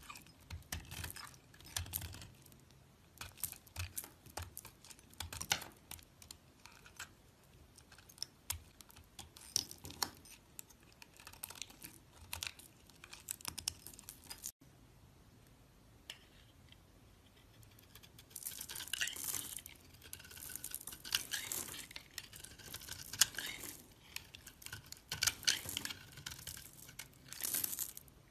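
A blade cutting and scraping into a bar of soap: a run of small crisp clicks and crumbly scrapes, growing denser and louder over the last third.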